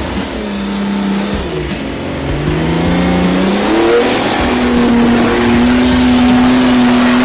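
Off-road 4x4's engine revving up and down as it climbs a muddy, leaf-covered slope, its wheels spinning and throwing mud. From about halfway the engine is held at steady high revs.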